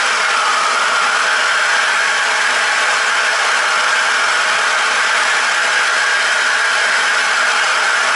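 Plumbing torch flame burning with a steady, loud hissing roar, as when soldering copper heating pipe fittings.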